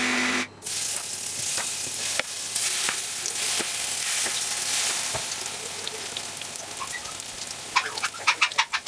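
Hot oil sizzling and crackling in a frying pan as spoonfuls of grated-vegetable fritter batter are dropped in and fry. Near the end, a louder quick run of sharp clicks, about four a second.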